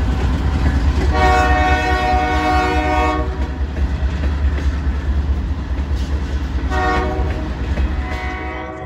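Freight train rolling past close by: a steady low rumble of the cars on the rails. A diesel locomotive horn sounds a long blast about a second in, a short blast near seven seconds, and another near the end.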